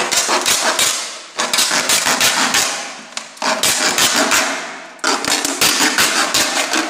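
Thin plastic bottle being cut around its middle with a utility knife: crackling, crinkling sawing strokes in four bursts, each starting sharply and fading over a second or two.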